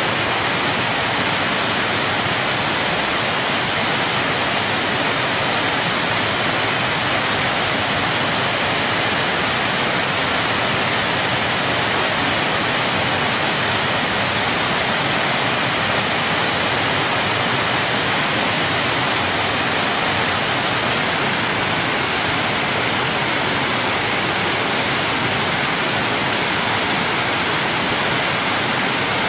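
Large waterfall: a steady, unbroken rush of falling water with a strong hiss.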